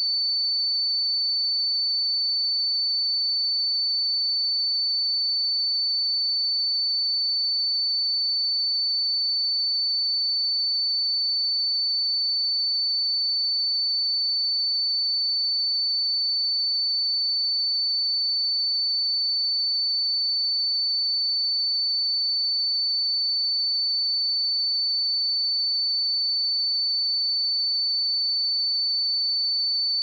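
A pure 4513 Hz sine-wave test tone, one steady high-pitched note held at a constant level, used to check speakers or headphones.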